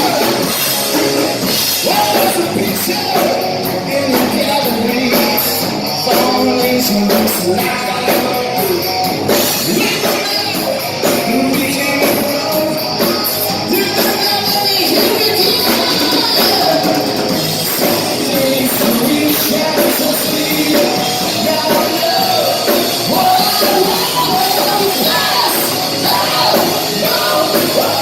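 Live rock band playing at full volume: electric guitars, bass and drums with a lead singer.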